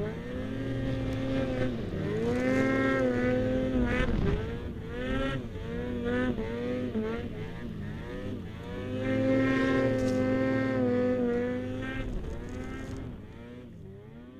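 Ski-Doo 800 E-TEC two-stroke snowmobile engine revving up and down over and over as the sled is ridden through deep powder. Over the last couple of seconds the revs fall and the engine gets quieter.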